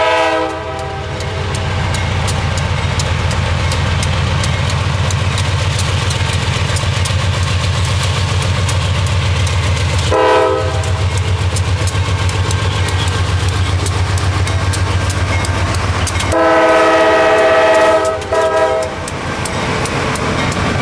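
CSX freight train passing close, led by GE diesel locomotives: steady low engine rumble with a pulsing beat and rapid wheel clicks. The lead unit's multi-note air horn sounds over it: the end of a blast at the start, a short toot about ten seconds in, then a long blast and a quick short toot near the end.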